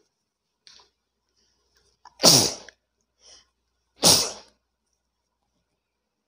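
A person sneezing twice, loud and close to the microphone, about two seconds apart; in the first sneeze the voice falls in pitch.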